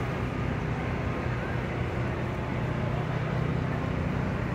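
Steady city street noise, mostly a low rumble of traffic.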